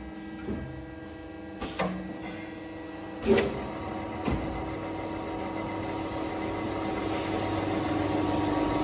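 Automatic CNC circular saw running with a steady hum, a few knocks in the first half, the loudest about three seconds in. From about halfway the noise of the blade cutting through a bundle of square metal tubes grows steadily louder.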